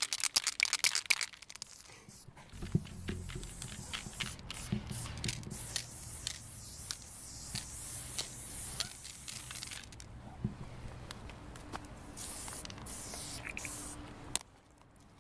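Aerosol spray paint cans hissing in short and longer bursts as letters are painted on a wall. A rapid clicking rattle comes in the first second or so.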